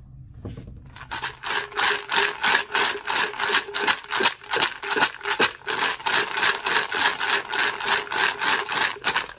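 Cast lead 9mm round-nose bullets rattling inside a capped PVC pipe as it is shaken back and forth, tumbling them in powder coat so that it clings to them. The rhythmic rattle starts about a second in and keeps going steadily.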